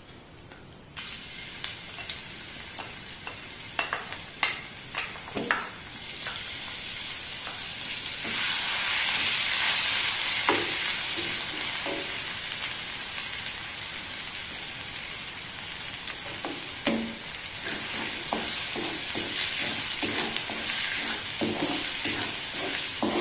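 Ginger, garlic and green chilli paste sizzling in hot sesame oil in a clay pot. The sizzle starts abruptly about a second in, as the paste hits the oil, and is loudest for a few seconds in the middle. A wooden spatula knocks and scrapes against the clay as the paste is stirred.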